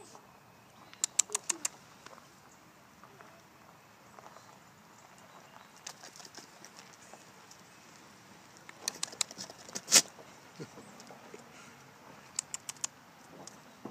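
A goat's mouth and tongue smacking and bumping against a phone held close. Short clusters of sharp clicks and taps come about a second in, around nine to ten seconds in (the loudest), and near the end.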